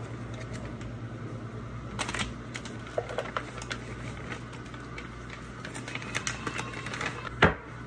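Crinkling and rustling of a paper muffin-mix pouch as it is handled and emptied into a mixing bowl, as many quick irregular crackles, with one sharp knock near the end, over a steady low hum.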